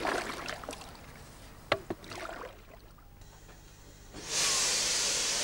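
Faint water sounds and two light knocks from a coracle being paddled on the river, then, about four seconds in, a loud, steady hiss of steam starts abruptly.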